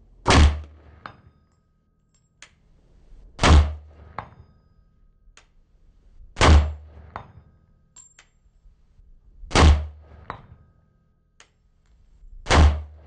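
Five slow, evenly spaced rifle shots from a short-barrelled 5.56 AR-15 with a Q Cherry Bomb muzzle brake, a sharp, concussive report about every three seconds. Each shot is followed within a second by a fainter crack and a short metallic ring, the steel target downrange being hit.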